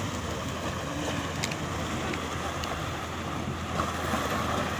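Small sea waves washing in and splashing against shoreline rocks, with wind buffeting the microphone.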